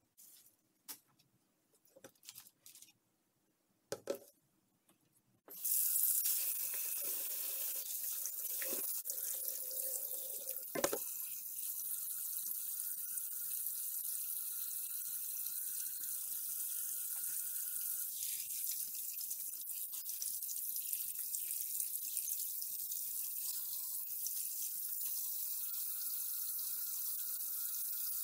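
Kitchen tap running full into a stainless steel sink, water splashing over anchovies in a colander as they are rinsed by hand; it comes on about five seconds in, after a few short rustles. A couple of knocks sound in the first seconds of the running water.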